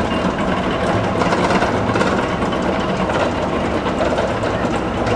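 Vekoma looping roller coaster train running on its steel track, a steady dense rattle.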